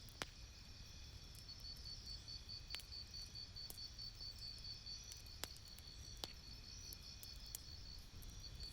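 Campfire crackling: scattered sharp pops, the loudest just after the start and a few more spread through, over a low steady rumble of the fire. A high, rapidly pulsing cricket-like chirp runs underneath.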